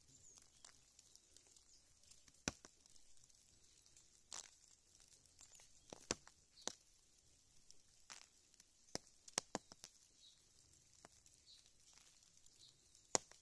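Near silence in heavy wet snowfall, broken by about a dozen irregular soft ticks and taps of falling snow, the loudest near the end. A few faint high chirps come in the later seconds.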